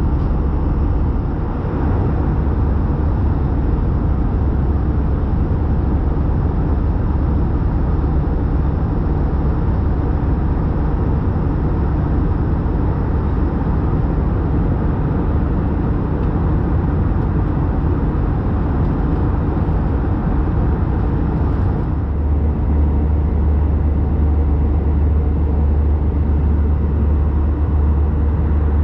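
Cabin noise of an Airbus A320-214 in flight: a steady rumble of the CFM56 engines and rushing airflow. About 22 seconds in, the sound shifts, with the deep rumble growing stronger as the higher hiss eases off.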